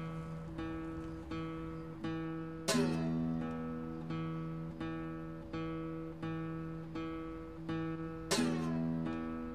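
Background music on acoustic guitar: single notes picked slowly and evenly, about one every 0.7 seconds, with a louder strummed chord about three seconds in and again near the end.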